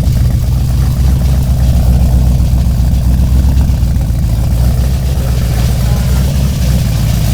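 Car running and driving, heard from inside the cabin as a steady low rumble of engine and road noise.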